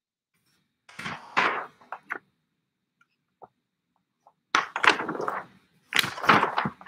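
Pages of a 1940s LIFE magazine being turned by hand, the large thin paper sheets rustling in about four short bursts, louder in the second half.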